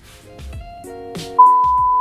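A loud, steady, high beep of the kind that goes with TV colour bars cuts in about one and a half seconds in. Under it, background music with sustained chords and a beat starts about half a second in.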